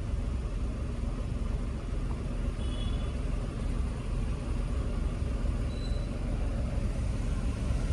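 Maruti WagonR's three-cylinder petrol engine idling steadily, running smoothly with no misfire now that the cracked cylinder 2 ignition coil and worn spark plugs have been replaced.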